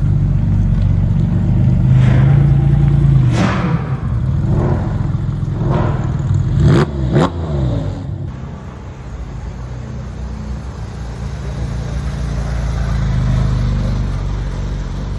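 Porsche sports car engine revving and accelerating, its pitch sweeping up and down several times in the first half. About eight seconds in it gives way to a quieter, steadier engine sound.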